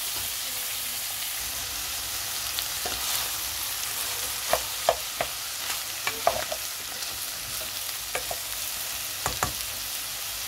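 Beef cubes and tomato wedges sizzling steadily in a frying pan while being stirred, with a utensil scraping and knocking against the pan now and then, mostly in the second half.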